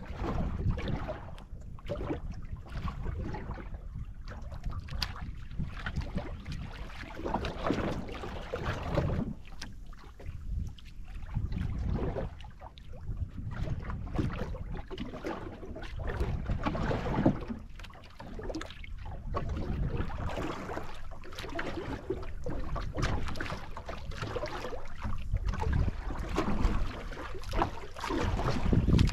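Wind buffeting the microphone and water slapping against the hull of a small outrigger boat drifting at sea. The sound swells and fades every few seconds.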